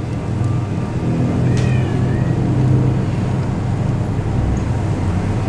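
Steady low mechanical hum of a running machine, even throughout.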